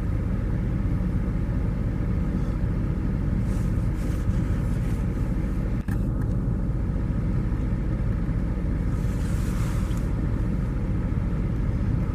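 Steady low rumble with a brief dropout about halfway through and a short hiss near the end.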